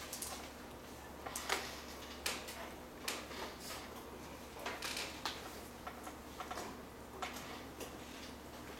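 Irregular light clicks and taps, a dozen or so spread unevenly, over a steady low hum of room equipment.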